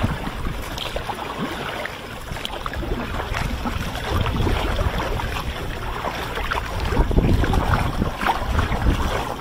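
Water splashing and lapping around a sea kayak as it is paddled, with many small splashes and drips. Wind rumbles on the microphone, stronger from about four seconds in.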